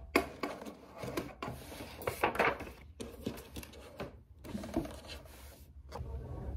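Sheets of paper handled and shuffled on a desk: irregular rustles and light knocks with short gaps between them. Near the end a mechanical pencil starts writing on the paper.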